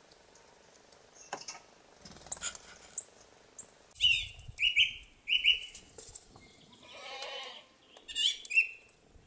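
Faint clicks and thin high chirps, then about 4 seconds in a thrush starts singing: loud, clear short whistled phrases with pauses between them, several of the phrases alike.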